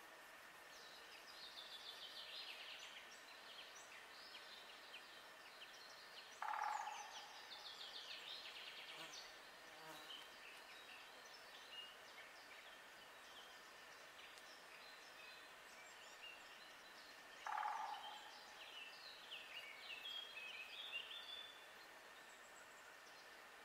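Woodland birdsong: several small birds singing in high, quick chirping phrases, with two short, louder and lower calls from a larger bird, one about six and a half seconds in and another about eleven seconds later. A faint steady high hum runs underneath.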